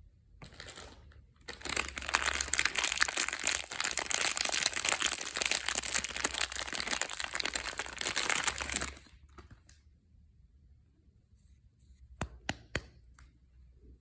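Soap packaging being torn open and crinkled by hand in a dense crackling rustle lasting about seven seconds, followed near the end by a few sharp clicks.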